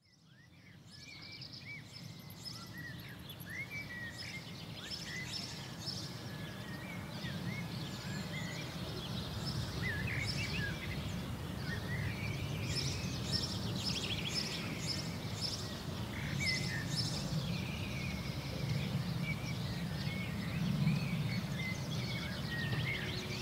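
Many birds chirping and calling together over a steady low rumble of outdoor background noise, fading in over the first couple of seconds.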